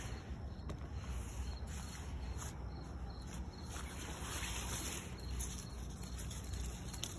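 Tomato leaves and stems rustling and brushing against the phone as the plants are handled, with scattered small crackles, over a steady low wind rumble on the microphone.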